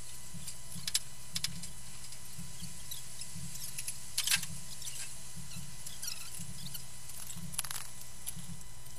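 A low steady hum with a few faint, scattered clicks and light taps, the clearest about four seconds in and again near the end.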